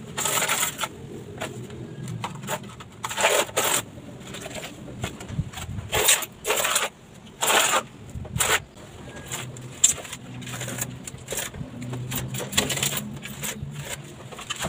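Irregular gritty scraping and scrubbing strokes: a pointed hand tool scraping wet grout along the joints of a broken-tile mosaic, and a sponge rubbed over the grouted tiles.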